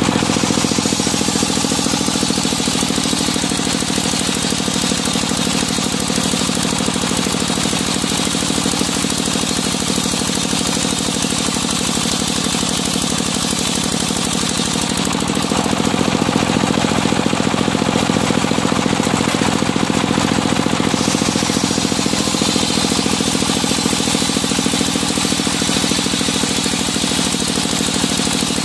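Engine-driven circular sawmill ripping a medang log: the engine runs steadily with a rapid pulsing beat under the hiss of the big circular blade cutting through the wood. The sound grows louder for a few seconds in the middle of the cut.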